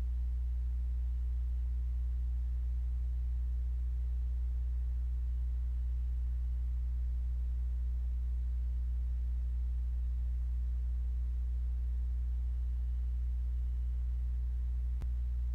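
Steady low electrical hum with a few overtones, mains hum picked up in the recording microphone's signal. A single faint click near the end.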